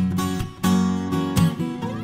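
Background music: an acoustic guitar strumming chords, with several strokes in quick succession.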